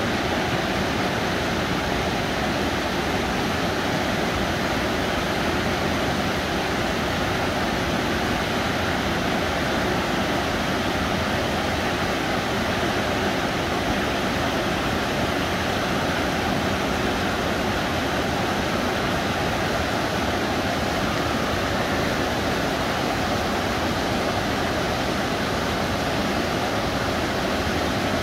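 Mountain river rushing over and between large boulders in small cascades and rapids, a steady full rush of white water with no break.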